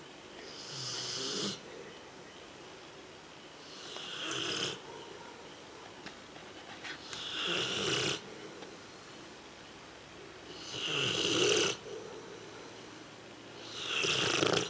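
Rottweiler snoring in sleep: five snores about three seconds apart, each about a second long, swelling and then stopping abruptly.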